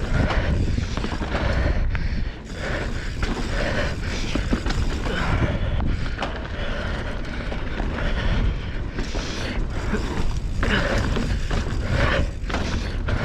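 Mountain bike riding fast down a dirt trail: steady tyre noise on the dirt, with the chain and bike rattling and clicking over bumps.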